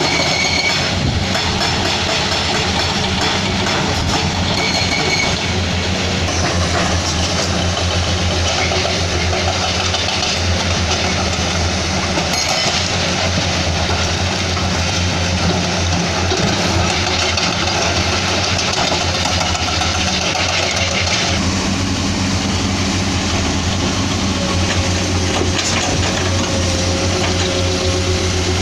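Heavy diesel engines of a Komatsu PC210-10MO excavator and a Hino dump truck running steadily at a loading site, with an even low hum. The sound grows deeper about three quarters of the way through.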